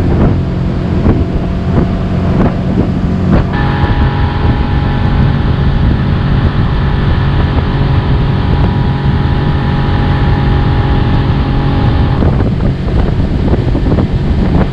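A 40-horsepower Yamaha outboard motor running steadily at speed, driving the boat across the water, with wind on the microphone. A few seconds in, a higher whine comes through more strongly, and it fades back near the end.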